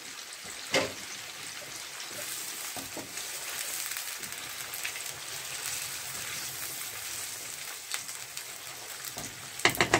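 Chicken pieces sizzling steadily in hot oil in a nonstick frying pan, stirred with a wooden spatula. A few knocks of the spatula against the pan: one sharp knock about a second in and a quick cluster near the end.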